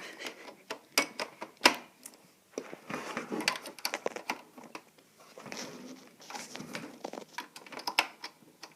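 Cable plugs being pushed into an Xbox One console and cords being handled: a string of irregular sharp plastic clicks and knocks with rustling between them, the loudest knock a little under two seconds in.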